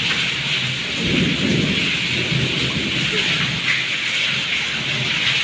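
Steady heavy rain: a continuous hiss of falling water and rain striking hard surfaces, with a deeper rumble swelling about a second in.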